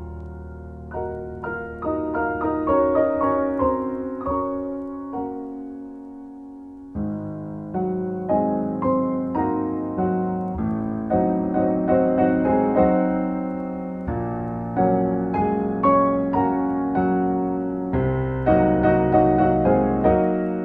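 Piano music: a steady run of struck notes, each fading away, over deeper notes that change every few seconds. The playing grows quieter for a few seconds near the middle, then picks up again.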